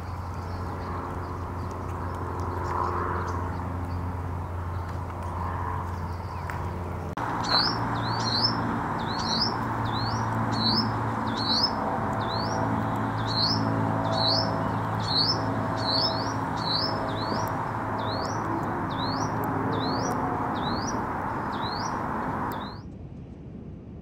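A low steady hum with background ambience. Then, about a third of the way in, a small songbird starts repeating a short, rising, high-pitched note, about one and a half a second, over steady background noise. It cuts off suddenly near the end.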